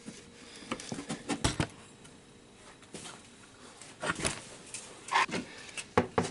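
Irregular light taps, clicks and scrapes from hands working on a PVC pipe fitted through a plywood panel.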